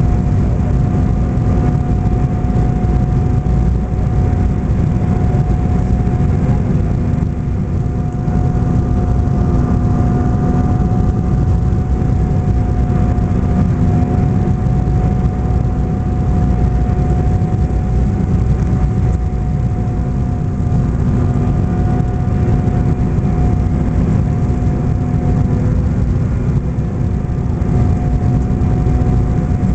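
Cabin noise inside an Embraer E-190 jet airliner descending on approach: its wing-mounted GE CF34 turbofans and the airflow make a steady low rumble with a constant hum running through it.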